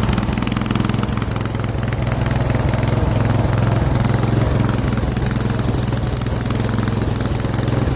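Riding lawn mower engine running steadily as the mower is driven along.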